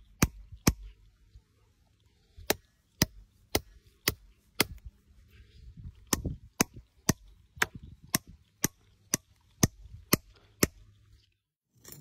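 Sharp steel-on-steel hammer strikes, evenly paced at about two a second, with a short pause about a second in, stopping shortly before the end: plug-and-feather wedges being driven into drill holes to split a quartz boulder.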